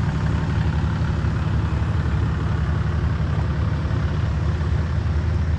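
Toyota LandCruiser four-wheel drives idling close by: a steady, low engine note with no revving.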